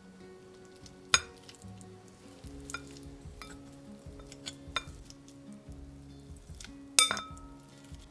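A utensil clinking against a glass bowl of peeled hard-boiled eggs: two sharp ringing clinks, about a second in and near the end, with lighter taps between. Soft background music plays underneath.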